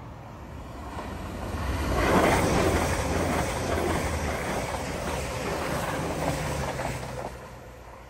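Bombardier Voyager diesel multiple unit passing at speed: a rush of air and wheel noise that builds over the first two seconds, holds with a steady low drone underneath, then fades near the end.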